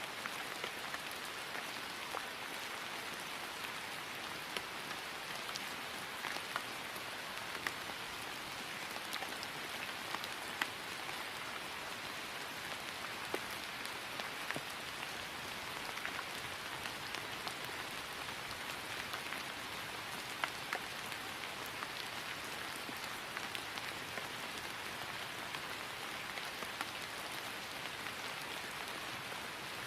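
Steady rain falling on grass: a constant soft hiss with scattered individual drops ticking close by.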